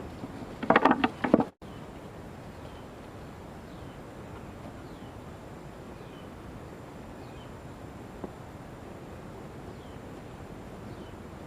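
About a second and a half of loud irregular noise, then, after an abrupt cut, a steady outdoor hiss with faint short falling chirps repeating roughly once a second and a single click near the end.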